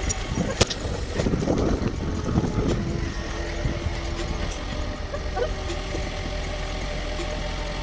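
Steady low hum of an idling engine, with a rustling noise for the first few seconds.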